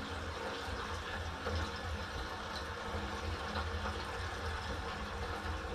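Gasoline pouring steadily from a plastic gas can through its spout into the fuel tank of a Generac GP6500 portable generator.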